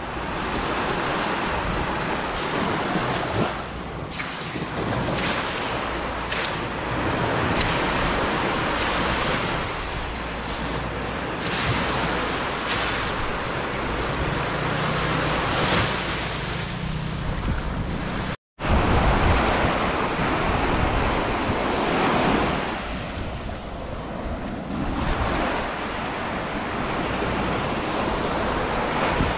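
Surf washing onto a beach, with wind buffeting the microphone. The sound drops out for a split second about two-thirds of the way through.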